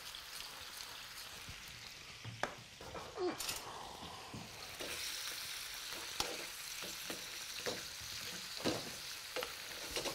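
Sliced carrots, asparagus and potato sizzling in oil in a frying pan, with a spatula stirring them and knocking against the pan now and then.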